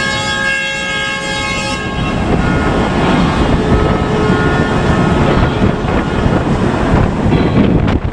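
Ship horns sounding together in a long chord that stops about two seconds in. Then wind buffets the microphone over a steady rush of water, with a fainter horn note held for a few seconds.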